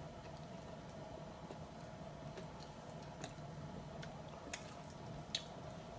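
Faint, soft squishing and a few small clicks of fingers mixing rice on a plate, over a steady low hum.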